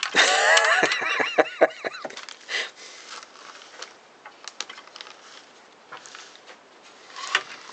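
A bird chirping and warbling in quick rising and falling notes for about two seconds, followed by scattered light clicks and taps of small parts and tools being handled.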